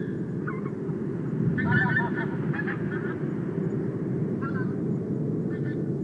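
Birds giving short, repeated calls, several in quick succession about one and a half to two seconds in, over a steady low rumble.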